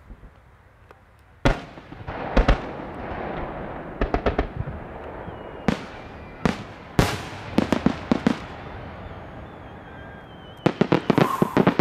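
Aerial firework shells bursting in a large display: a sharp bang about one and a half seconds in, then booms and quick volleys of reports spaced a few seconds apart. A dense run of rapid bangs comes near the end.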